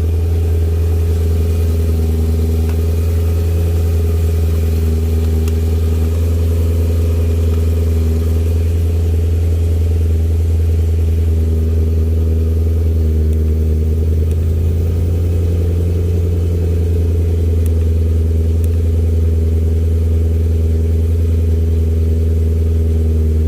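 Supercharged BMW E92 M3's S65 V8 idling steadily, a smooth, even low hum. The owner says the car seems fine now after a no-start problem logged as a low fuel-pressure-regulator control circuit.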